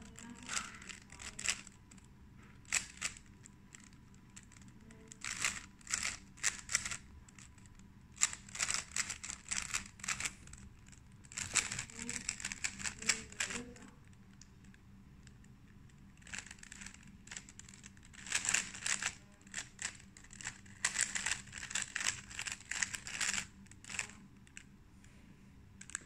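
Plastic 3x3 Rubik's cube being turned fast, its layers clicking and clattering in quick runs of turns separated by short pauses.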